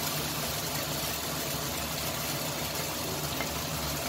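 A steady low machine hum under an even hiss, unchanging throughout.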